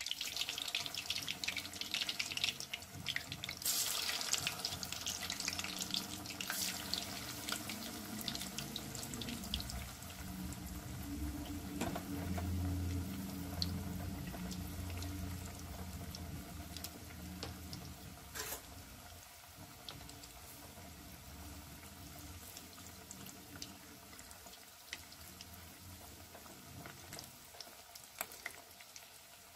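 Hot oil sizzling and bubbling around breadcrumb-coated cheese balls deep-frying in a kadai. It is loudest in the first few seconds as more balls go in, then slowly dies down, with an occasional light click of a spatula against the pan.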